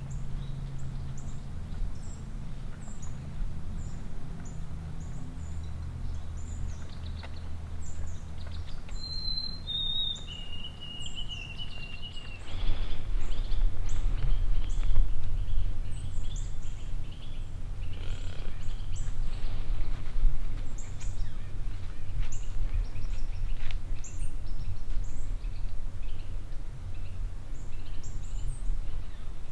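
Woodland ambience: a steady low rumble under many short, high bird chirps. About nine seconds in, a single clear whistled note slides down in pitch for about three seconds. From about twelve seconds in, the background grows louder and rushier.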